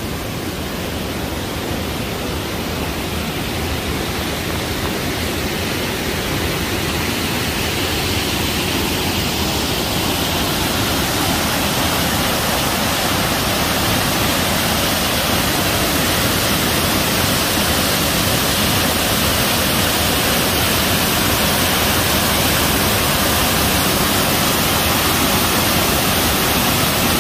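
Waterfall and mountain stream rushing steadily over rocks, getting gradually louder over the first half as the falls come closer.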